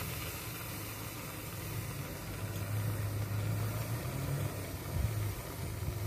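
Aerosol whipped-cream can hissing steadily as cream is sprayed out, over a steady low hum.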